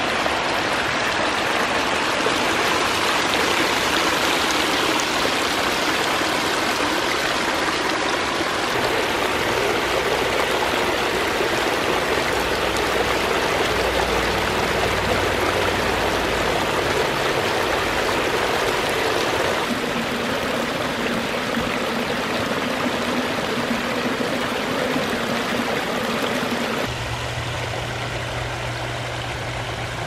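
Water from a backyard pondless waterfall, spilling and splashing steadily over stone ledges into a rocky stream bed. Low steady tones sit underneath and shift about two-thirds of the way through and again near the end, where the water sound gets a little quieter.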